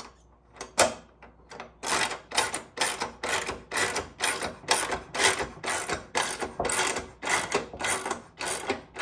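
Socket ratchet with a 13 mm socket tightening a nut on a bolt, the pawl clicking on each back-stroke. A few clicks at first, then from about two seconds in a steady run of strokes about two a second.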